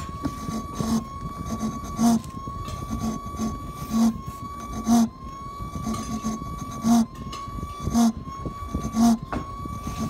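Samsung dishwasher running with a steady high whine that dips about once a second, each dip marked by a low knock.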